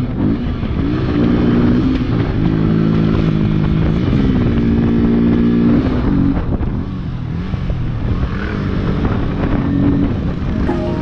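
Motorcycle engine running under way. Its pitch climbs and settles a couple of times as the bike accelerates, then drops off about six seconds in as the rider eases off.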